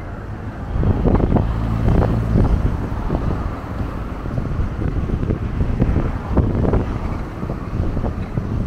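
Wind buffeting the microphone of a camera carried on a moving bicycle: a loud, low rumble that swells and drops in uneven gusts.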